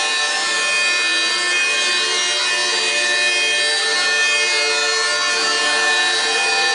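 Electric detail sander running steadily against wooden wagon-wheel spokes, abrading the old finish. Music plays over it.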